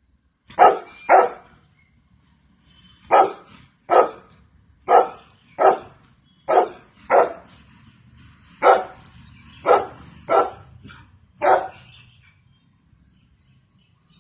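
Golden retriever barking: about a dozen short barks, mostly in quick pairs with pauses of about a second between them, stopping about two and a half seconds before the end.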